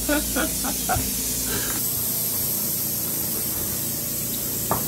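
Steady, loud hiss of air rushing into an OXY-AIR 32 portable soft-shell hyperbaric chamber as it pressurizes, with a few light handling knocks in the first second and one near the end.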